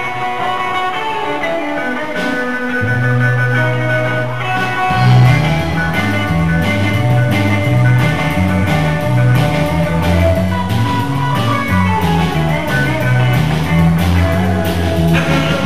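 Live rock and roll band playing an instrumental passage: hollow-body electric guitar lines, with the electric bass coming in about three seconds in and the drum kit joining with a steady beat about two seconds later.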